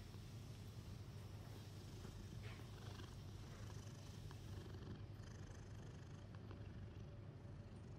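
Domestic cat purring steadily and faintly.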